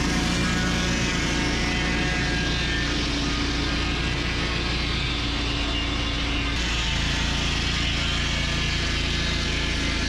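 Mahoe sawmill's engine running steadily under load while milling tamarack logs.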